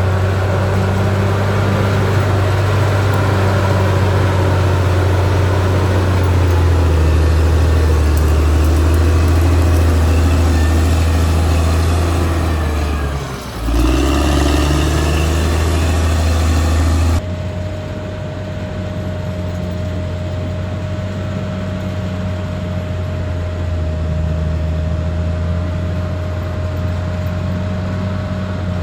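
Caterpillar D6R XL bulldozer's diesel engine running under working load. About halfway through its pitch sags briefly and picks back up. Later the sound changes abruptly to a quieter, duller engine note with a steady whine over it.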